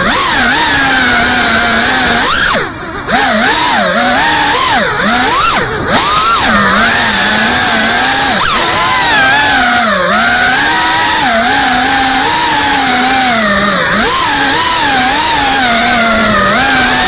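FPV freestyle quadcopter's brushless motors and propellers buzzing, heard from on board, the pitch rising and falling constantly with the throttle. The sound drops away briefly about three seconds in and again near six seconds.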